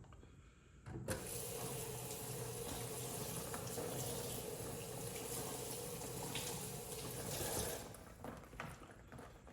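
Water tap running into a sink, turned on about a second in and shut off near the end, a steady rush of water.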